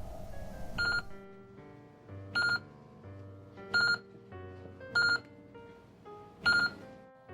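Soft keyboard background music, broken by five short, high-pitched electronic beeps spaced a little over a second apart.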